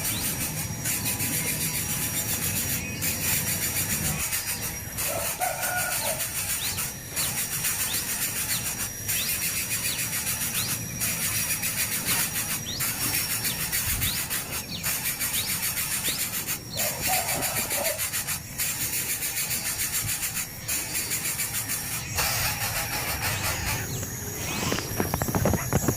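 Nestling birds' high, repeated begging calls over a steady high hiss of outdoor background sound, with a lower call heard briefly twice.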